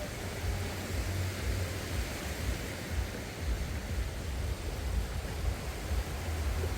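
Beach ambience: a steady rushing noise of wind and gentle surf, with an uneven low rumble of wind on the microphone.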